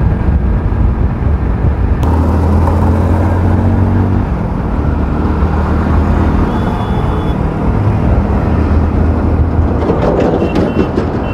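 Hero Splendor motorcycle's single-cylinder four-stroke engine running steadily under way, with wind and road noise over the bike-mounted microphone. The engine note eases about four seconds in, and a few short high beeps sound near the end.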